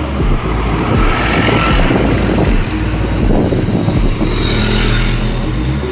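Road traffic passing close by: a large coach bus drives past with its engine running, followed by other motor vehicles including a motorcycle, over a steady low rumble of wind on the microphone.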